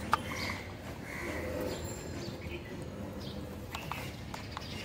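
Faint clicks and taps of plastic toy wheels being handled and pushed onto a toy car's axles, over a low background hum.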